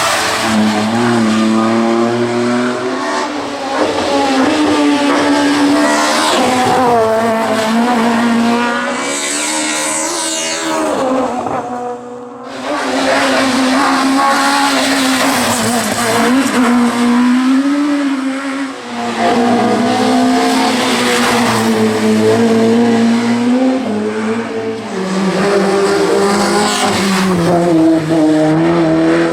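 Hill climb race car engines at full throttle, the engine note climbing and dropping again and again through gear changes as the cars pass. The sound dips briefly twice, about twelve and eighteen seconds in.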